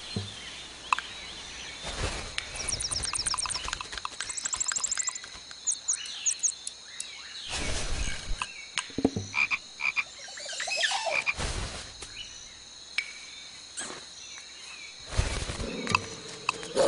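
Paper crinkling and rustling as it is handled and crumpled, with scattered crackles and clicks and two short, rapid rattling trills in the first few seconds.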